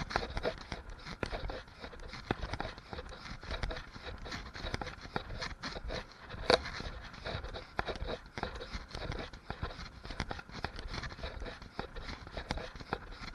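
Typhoon wind buffeting the microphone with a deep rumble, mixed with rain and many irregular clicks and rattles, and one sharper knock about six and a half seconds in.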